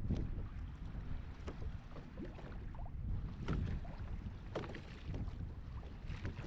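Water lapping and sloshing against a small boat's hull, with irregular light knocks and gurgles about once a second. A low wind rumble on the microphone runs underneath.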